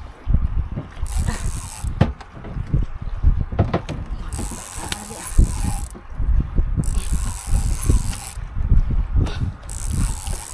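Fishing reel being worked against a hooked fish: the reel's gears and drag ratchet in spells of a second or two, over repeated low bumps and knocks.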